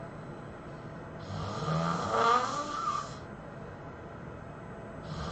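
A person snoring heavily: one loud snore about a second in, lasting about two seconds, and the next one starting right at the end.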